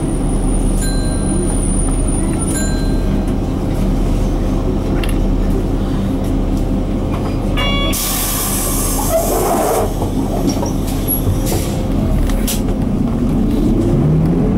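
Cabin sound of a Mitsubishi Fuso Aero Midi MK bus's 6M61 six-cylinder diesel running, with a burst of compressed-air hiss about eight seconds in that lasts around two seconds. Near the end the engine note rises as it speeds up.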